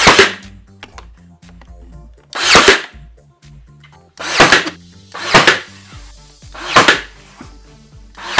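Ryobi One+ 18V cordless brad nailer firing brads into quarter-round shoe moulding, five loud sharp shots spaced a second or two apart.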